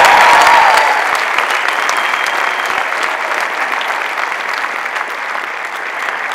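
A large audience applauding, with a few cheers at the start. The clapping is loudest at the beginning and slowly dies down.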